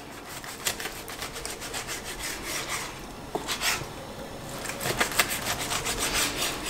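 Large chef's knife sawing through a grilled flank steak on a plastic cutting board: repeated back-and-forth strokes, the blade rasping through the seared crust and scraping the board, with a few sharper clicks as it meets the board.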